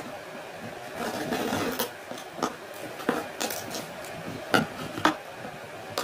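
Scissors cutting the plastic wrap and tape on a cardboard box: a series of sharp snips, about six of them, with rustling of the plastic in between.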